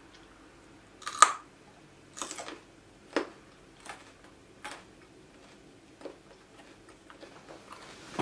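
A person bites into a raw carrot with a loud crunch about a second in, then chews it with a crunch roughly every second, the crunches getting fainter toward the end.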